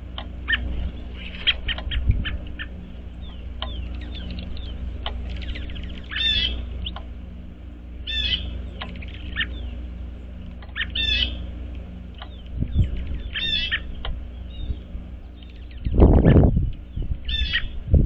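Wild songbirds calling at a winter feeder: one call repeated about every two to three seconds among scattered short chirps, over a steady low rumble. Near the end a brief loud rush of noise stands out above the birds.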